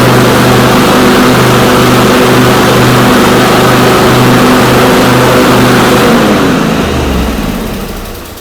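Craftsman GT5000 garden tractor engine running at speed with the mower deck engaged, a loud, steady drone with a regular pulse. About six seconds in it shuts off and winds down to a stop.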